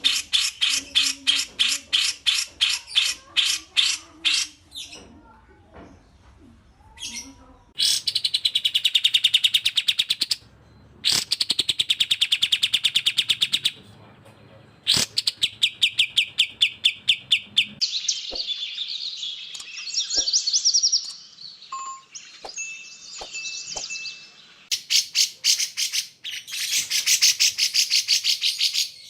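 Bulbul song for bird training, from cucak jenggot and kapas tembak: rapid rattling trains of high, clipped chirps many notes a second, in phrases broken by short pauses, with one brief steady whistled note about three-quarters of the way through.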